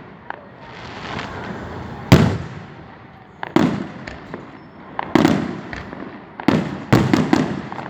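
Fireworks bursting overhead: a string of sharp booms, each trailing off in a rumbling echo. The loudest comes about two seconds in, and several follow in quick succession near the end.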